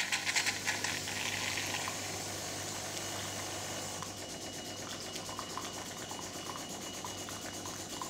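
De'Longhi Magnifica bean-to-cup machine's pump running with a steady low hum while hot water streams from the water spout into a glass, sputtering for about the first second as the air blockage is pushed out of the circuit, then flowing evenly.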